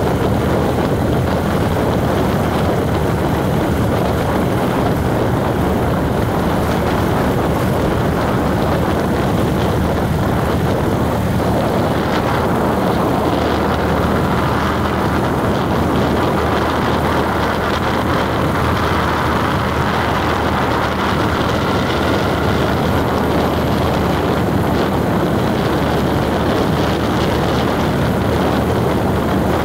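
Steady engine and road noise of a vehicle driving along without let-up, with a constant low drone beneath a broad rushing noise.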